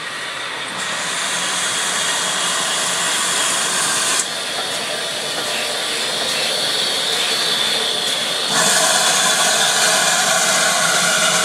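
Steam train, including GWR 28xx 2-8-0 No. 2807, running past close by: a steady hiss of steam over the rolling of the locomotives and coaches. It grows louder, with a sudden jump in loudness about eight seconds in.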